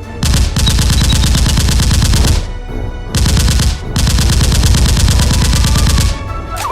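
Rapid automatic gunfire in three bursts: a long one, a short one, then another long one.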